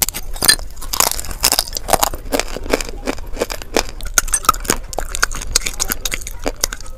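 Close-up crunching of dry baked clay pieces being bitten and chewed, a rapid run of sharp, crisp cracks.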